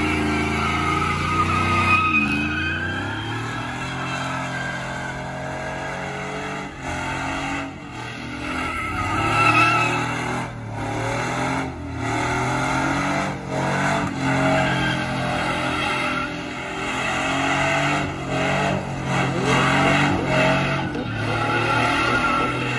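A lowered pickup truck doing donuts: the engine held at high revs, rising and falling, while the spinning rear tyres squeal continuously on concrete.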